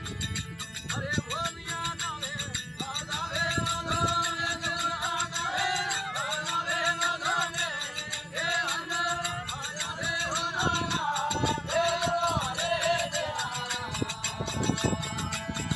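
Rajasthani folk bhajan music: a melody with sliding, ornamented pitch over percussion with rattling jingles.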